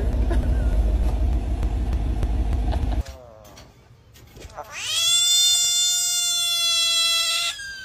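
A car engine runs with a low steady rumble for about three seconds. After a short lull, a large frog gives one long, high, wailing scream that rises at the start, then holds for about three seconds before cutting off: the distress scream of a frog that feels threatened.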